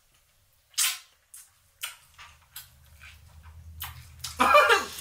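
Mouth sounds of someone sucking on a lemon wedge: one short, sharp slurp about a second in, then a few soft smacks and clicks. A voice starts near the end.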